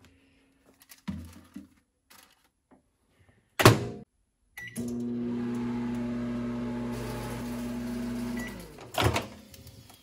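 KitchenAid microwave oven running a test with a newly replaced magnetron. The door latches shut with a sharp click and the keypad beeps. The oven then runs with a steady electrical hum for about four seconds, beeps again, and the door clicks open near the end.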